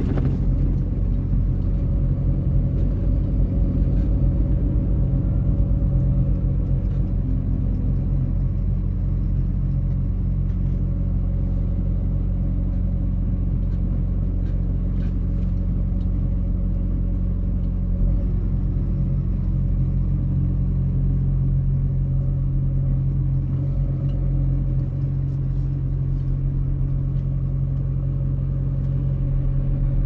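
Heavy truck's diesel engine running steadily at low revs, a low even hum.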